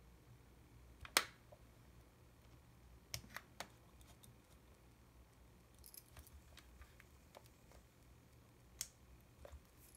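Small, sharp clicks and ticks from a jeweller's screwdriver, tiny screws and the plastic body of a Yashica T4 compact camera being handled during disassembly. The sharpest click comes about a second in, a quick run of three follows around three seconds in, and a few fainter ticks are scattered after.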